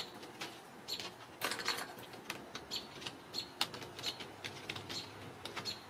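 Irregular light clicks, taps and rattles of Ragdoll kittens playing, batting a ball-track toy and clambering on a cat tree and wooden frame, with short high bird chirps scattered between.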